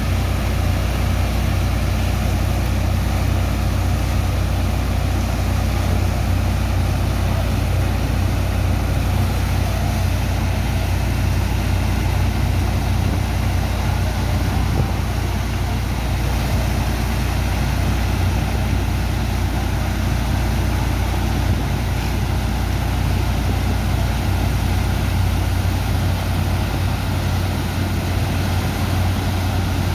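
Sand dredger's engine and pump running steadily under load, a deep even hum with a constant rushing noise above it.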